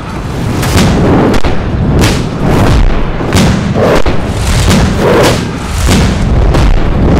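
Battle sound effects: a rapid series of loud gunshot-like bangs and booms, roughly two a second, over a continuous low rumble.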